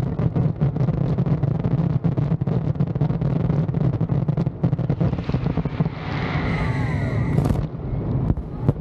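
Fireworks going off in a dense, continuous barrage of rapid bangs and crackling. From about five seconds in, screaming whistles slide up and down in pitch over the barrage.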